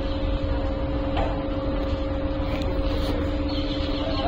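Steady mechanical hum with two constant tones over a low rumble, with faint voices in the background.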